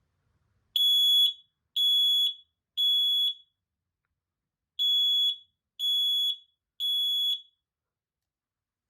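Home smoke alarm being tested, sounding two groups of three high-pitched beeps with a pause between them. This is the temporal-three pattern, the standard fire-evacuation signal.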